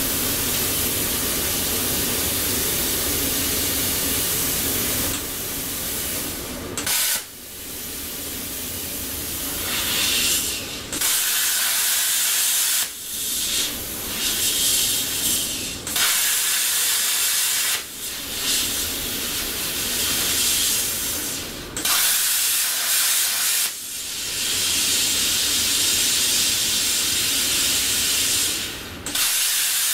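Longevity Forcecut 40D plasma cutter hissing loudly with its air and arc. It runs steadily for about five seconds, then cuts out and starts again several times. The owner traced this kind of cycling and arc dropping to a bad ground connection.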